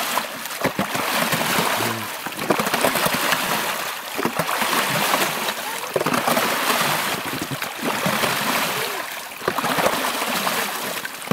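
Plastic snow shovel paddling the water in a hole cut in the ice, one sloshing splash about every two seconds, kept up steadily to keep the water moving.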